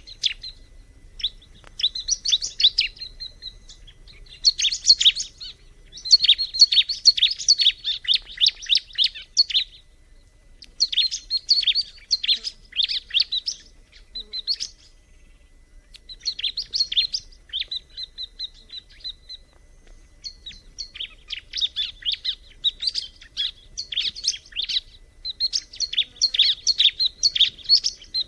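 Bar-winged prinia (ciblek) singing: bursts of rapid, high chattering trills, each lasting from about a second to about four seconds, repeated with short pauses.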